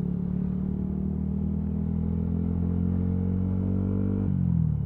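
Motorcycle engine running at a steady cruising pitch, with the note dropping about four seconds in as the bike slows.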